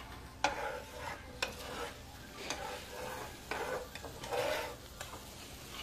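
Butter and minced garlic with herbs sizzling in a cast iron pan while a utensil stirs and scrapes the pan, knocking against it with a few sharp clicks.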